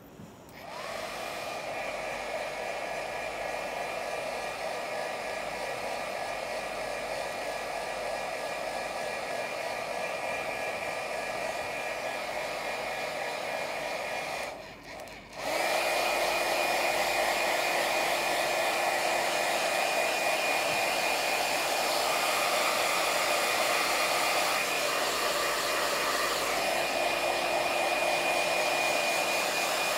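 Handheld iTeraCare wand running, its built-in fan giving a steady blow-dryer-like whir. It cuts out briefly about halfway, then comes back a little louder with a thin high whine on top.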